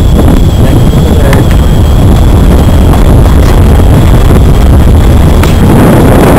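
Strong wind buffeting the microphone: a loud, steady rumble, with a faint steady high-pitched whine and a few light knocks.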